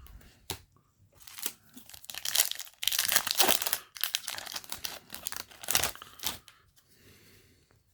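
A Yu-Gi-Oh! booster pack's foil wrapper being torn open and crinkled: a run of ripping and rustling bursts, loudest a couple of seconds in, dying away after about six seconds.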